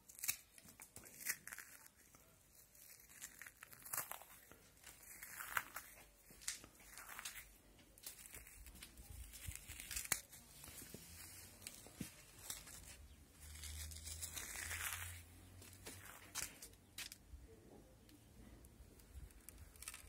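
A dry biscuit being crushed and crumbled by hand into crumbs: irregular crunching and crackling, with a few sharper snaps and a longer rustling stretch about two-thirds of the way in.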